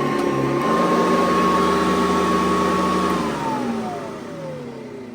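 Hoover Convertible U4397 upright vacuum cleaner running with a steady whine, then switched off about three seconds in, its motor winding down with a steadily falling pitch and fading.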